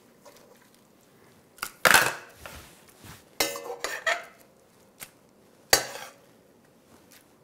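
Metal kitchen tongs clanking against the inside of a stainless steel pot while lifting out roasted red bell peppers. There are about five separate clanks, starting about a second and a half in, some ringing briefly.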